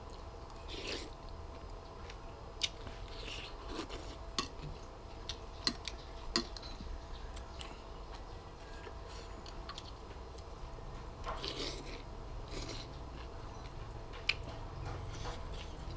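A person eating noodle soup: chewing and slurping noodles, with scattered light clicks of chopsticks and a spoon against the bowl. The slurps are loudest a little past the middle.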